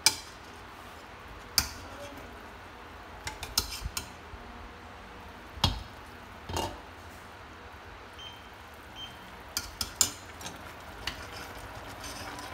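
Scattered sharp clinks and clanks of a glass pot lid, a metal ladle and chopsticks knocking against a stainless steel cooking pot, a dozen or so hits, some in quick little clusters, as the braised meat and mushrooms are stirred.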